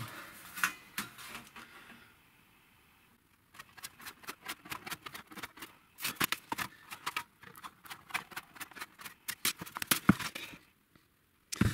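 Hand tin snips cutting thin galvanized steel sheet: a quick run of sharp snips, several a second, starting about three seconds in and stopping just before the end.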